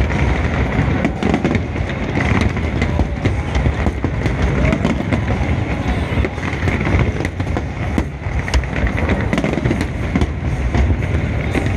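Aerial fireworks bursting in rapid succession, merging into a continuous low rumble with many sharp cracks on top.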